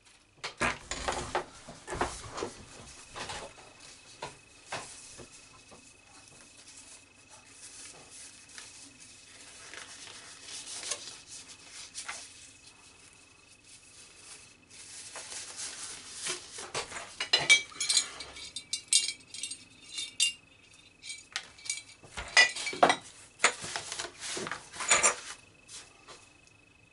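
Small items being handled on a leathercraft workbench: scattered clinks, taps and rubbing, sparse at first and busiest in the second half. A faint steady high whine runs underneath.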